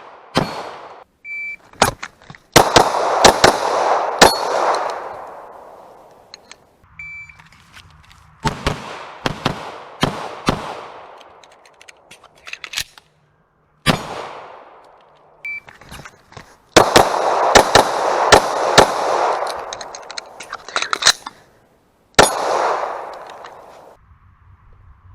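Handgun fired in three rapid strings of shots, each shot with a ringing tail. Each string starts about a second after a short electronic shot-timer beep. A few single shots sound between the strings.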